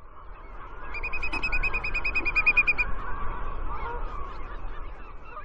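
A flock of birds calling over one another, with a rapid run of high, evenly spaced notes from about one second in, lasting nearly two seconds. The sound swells at the start and fades out near the end.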